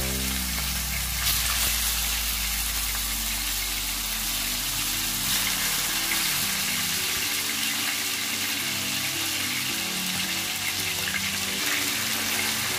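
Steady sizzling of food frying in hot oil and butter in a pan, an even hiss without a break. Soft background music runs underneath.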